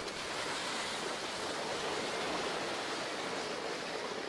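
Sleds sliding fast over an icy, snow-covered road: a steady scraping hiss of the sled bottoms on the ice.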